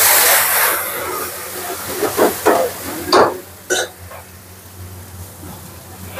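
Onions, capsicum and red puree sizzling in hot oil in a steel wok over a high gas flame, loud at first and dying down over a second or so into a quieter steady sizzle. A few short knocks about two to four seconds in.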